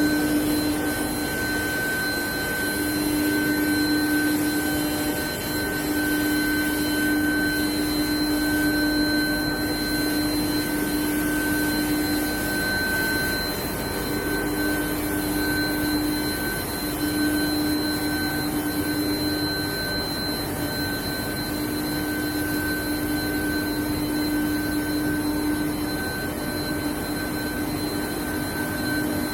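Steel bar induction hardening and tempering line running: a steady machine noise with a constant low hum and higher steady whines.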